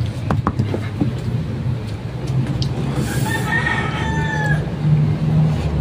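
A rooster crowing once, a call of about a second and a half about three seconds in, over a steady low hum.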